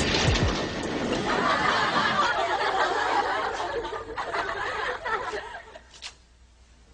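Audience laughter, a dense wash of many people laughing that dies away about five to six seconds in.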